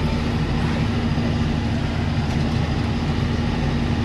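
Farm tractor engine running steadily under load, a constant low hum while it pulls a hay rake.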